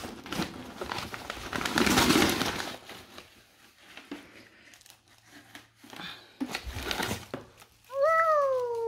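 Plastic treat bags and packaging rustling and crinkling as a Pomsky noses and digs through a box of pet goodies, loudest in the first few seconds. Near the end comes one high call whose pitch slides downward.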